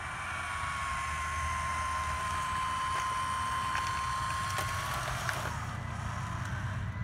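Small electric motor of a Diecast Masters RC Western Star dump truck whining steadily as it raises the dump bed, then stopping about five seconds in, with a few faint clicks.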